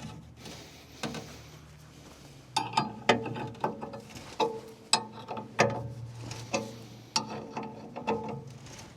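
Bolts being tightened with a hand ratchet on steel: ratchet clicking and metal clinking in irregular strokes, about two a second, starting a couple of seconds in.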